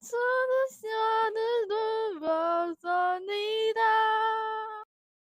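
A woman singing a slow melody with no accompaniment, holding each note for half a second to a second, with a few short breaks between phrases; the singing stops shortly before the end.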